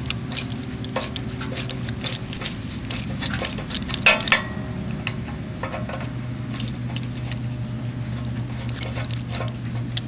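Socket wrench ratcheting, with irregular metal clicks and ticks, as a bolt on a condensing fan motor's mounting bracket is loosened. The sharpest clicks come about four seconds in, over a steady low hum.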